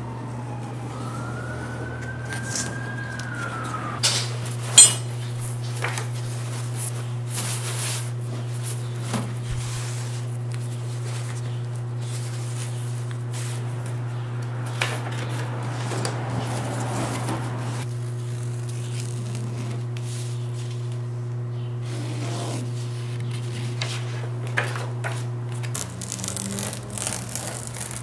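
Handling and cutting sheets of black shoe-upper material with a rotary cutter on a cutting mat: scattered light taps, rubs and clicks, with a busier rustle of the material near the end, over a steady low hum. A siren falls and then rises in pitch during the first few seconds.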